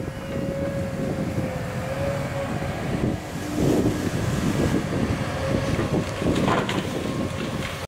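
Caterpillar 329E excavator's diesel engine working with a thin hydraulic whine as its tree shear holds and pushes over a cut tree. From about three seconds in, branches and leaves crackle and swish as the tree goes over.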